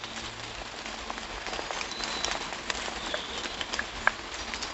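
Footsteps walking through fallen leaves on a forest floor: a steady rustle with many small crackles and crunches.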